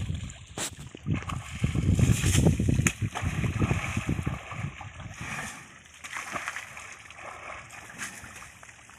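Water splashing and sloshing as an elephant moves and plays in a muddy pond. The splashing is heaviest in the first few seconds and then quieter.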